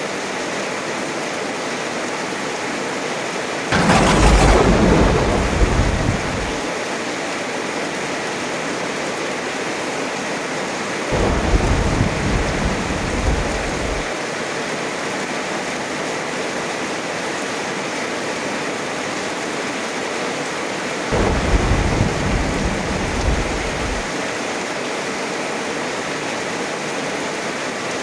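Heavy rain falling steadily, with three peals of thunder: a loud, sharp crack about four seconds in that rumbles away over two seconds or so, then two deeper rumbles of about three seconds each, around eleven and twenty-one seconds in.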